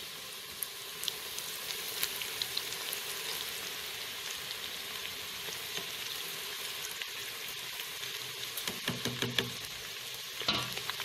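Besan-battered banana peel strips deep-frying in hot oil: a steady sizzle with scattered sharp crackling pops.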